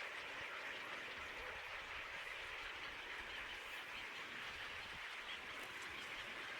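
Steady outdoor background with a continuous even hiss-like drone, with no distinct calls or knocks standing out.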